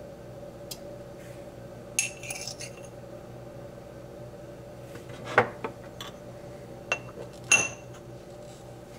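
Sharp clinks of a metal spoon, a ceramic mug and a small glass espresso cup knocking together, in separate strikes about 2, 5½, 7 and 7½ seconds in, the loudest near 5½ and 7½ seconds, over a steady low hum.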